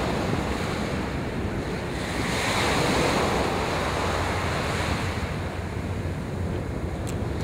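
Waves washing in the channel water close to the microphone, with wind buffeting the microphone. The wash swells about two to three seconds in and then eases.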